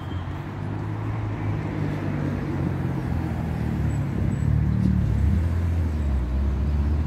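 Road traffic: a car's engine and tyres rumbling low and steady, growing louder as the car approaches on the road.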